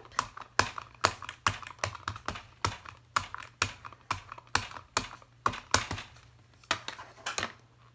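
Stampin' Up! Soft Suede ink pad dabbed again and again onto a stamp to ink it: quick sharp taps, about three a second, that stop shortly before the end.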